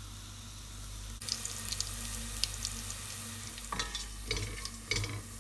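Whole spices (cumin and coriander seeds, bay leaves, cardamom, cinnamon) sizzling with a fine crackle in hot oil in a stainless steel pot: tempering the spices. A spoon stirs them a few times in the second half.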